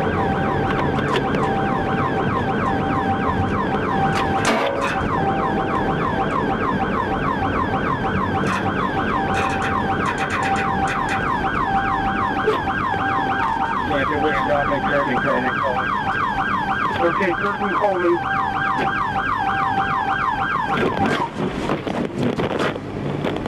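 Police cruiser siren in a rapid rising-and-falling yelp during a pursuit, heard from the patrol car's dash camera; it cuts off near the end.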